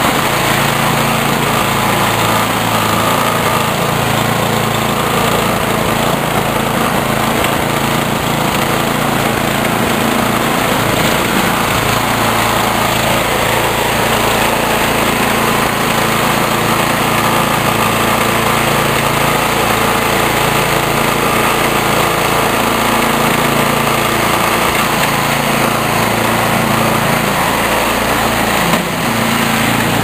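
Single-cylinder snowblower engine running steadily, just pull-started from cold.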